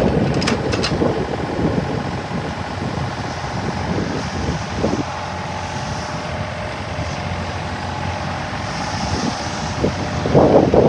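Yanmar ViO35-6A mini excavator's diesel engine running steadily, with wind noise on the microphone.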